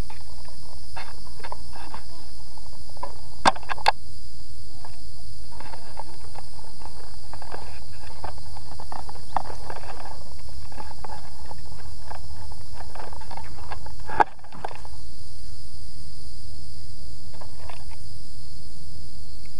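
Steady high insect chorus over a low rumble, broken by a few sharp clicks: two close together about three and a half seconds in, and a louder one about fourteen seconds in.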